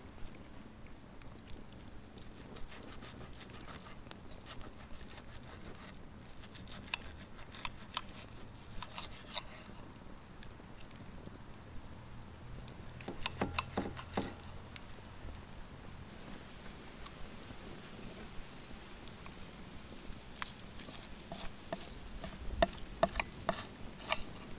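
Steak knife sawing through the seared crust of a thick ribeye, with scattered clicks and scrapes of the knife and fork against the plate, a cluster of them about halfway through and more near the end.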